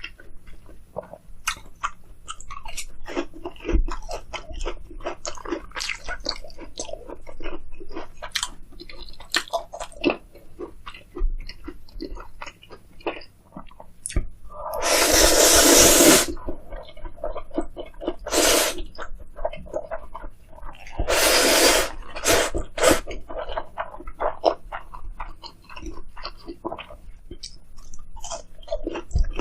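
Close-miked chewing of food, full of small crunches and wet mouth clicks. Two longer, louder noisy stretches come about halfway through and again a few seconds later.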